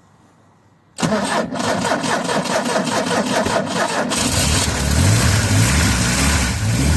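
UAZ Simbir engine being cranked on the starter for about three seconds, with a fast, regular churn, then catching a little over four seconds in and running on its own. The exhaust goes out through a 63 mm pipe.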